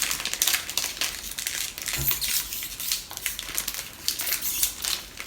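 Crinkling and crackling of a small plastic snack packet being handled and torn open, a dense run of irregular crackles.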